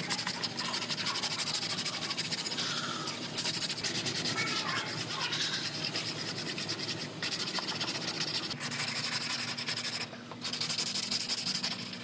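Sandpaper on a hand sanding block rubbed briskly back and forth over the steel rocker panel's repair seams: a continuous scratchy rasp with a short pause about ten seconds in.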